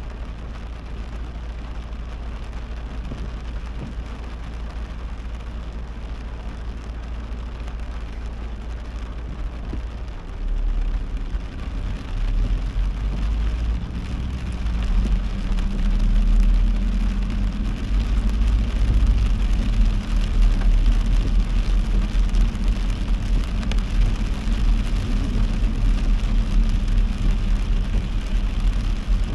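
Heavy rain falling on a moving car, with the car's road and engine noise under it. About halfway through, the low rumble grows louder.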